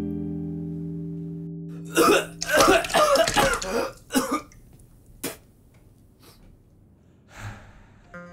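A strummed guitar chord rings out and fades. Then, about two seconds in, a young man retches and gags over a toilet bowl for about two seconds, with one more short heave soon after.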